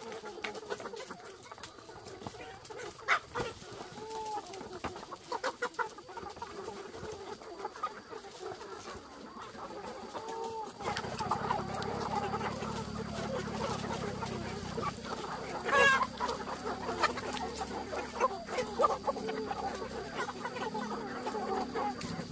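A large flock of chickens clucking as they crowd in to be fed, with scattered sharp ticks. About halfway through the clucking becomes denser and louder.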